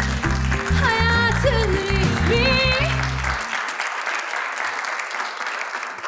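Studio entrance music with a pulsing bass and a few melodic phrases over audience applause. The music cuts off about three and a half seconds in, and the applause carries on alone.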